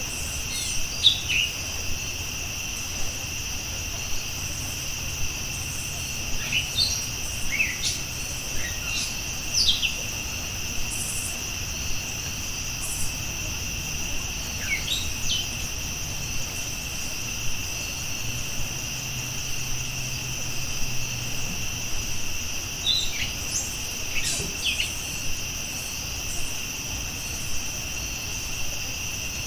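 Steady high insect chorus, like a cricket field at night, with scattered short bird chirps falling in pitch, coming in small clusters. A low rumble runs underneath.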